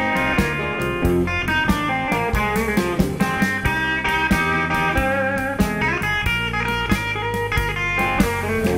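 Live blues band playing an instrumental passage: an electric guitar played note by note over a drum kit and low bass notes.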